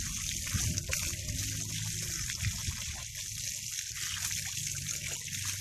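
Steady running water, trickling and splashing.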